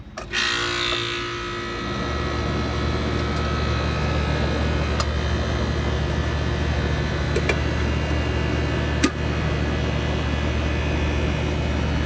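A 1980 Lennox HS9 central air conditioner, cover off, starting up: it comes on suddenly right at the start, then runs with a steady hum that fills out about two seconds in. A few sharp clicks sound partway through.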